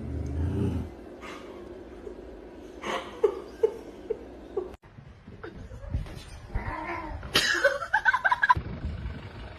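A house cat meowing and yowling in a few drawn-out cries that rise and fall, loudest about seven to eight and a half seconds in, with a dull thud at the very start.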